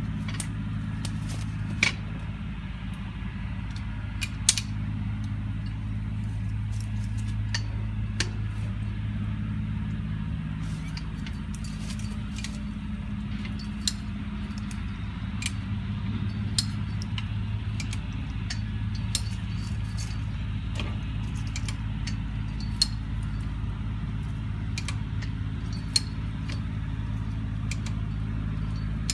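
High-lift jack being worked: irregular sharp metal clicks and clanks as the handle is pumped and the climbing pins ratchet up the steel bar. A steady low mechanical hum runs underneath.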